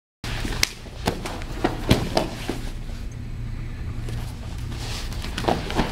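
Two people grappling on foam mats: bodies and hands thudding and scuffing on the mat, with several sharp knocks, over a steady low hum. The sound cuts in after a brief silence at the start.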